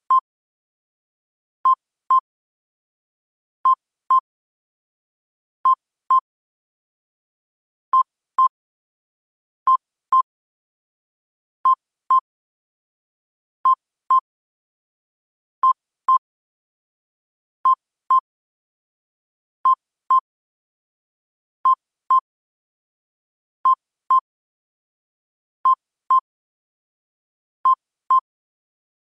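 Electronic beeps from an earthquake-monitoring program. Each beep is short and high, they come in quick pairs, and a pair repeats steadily about every two seconds.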